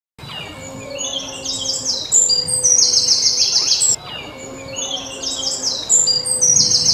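Songbird singing: a run of short falling whistled notes that builds into a fast, high trill, heard twice, with an abrupt break between the two phrases.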